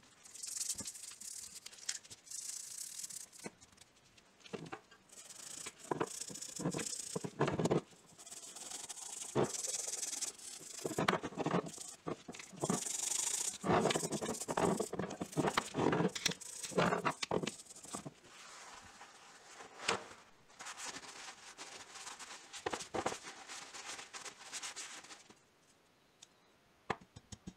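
A stiff-bristled toothbrush scrubs wet, vinegar-soaked rusty steel pincers in uneven bursts of strokes, loosening the softened rust. Light clicks come from the metal now and then. The scrubbing stops near the end.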